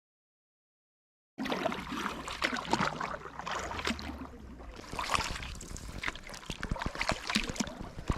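Kayak paddling: water trickling and splashing off the paddle blades, with many small clicks and drips. It starts after about a second and a half of complete silence.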